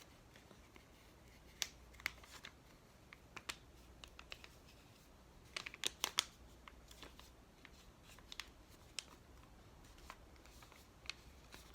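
Sheet of paper being folded and creased by hand: faint, scattered rustles and crinkles, with a quick cluster of sharper ones about halfway through.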